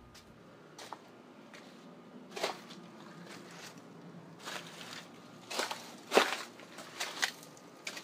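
A few irregular crunching footsteps, with short knocks scattered among them; the loudest comes about six seconds in.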